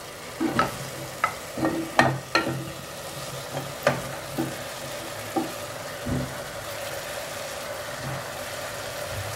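Onion and garlic frying in oil in a metal pot, a steady sizzle, with a string of knocks and clunks as pieces of calf's trotter are set into the pot, most of them in the first half and a duller thump about six seconds in.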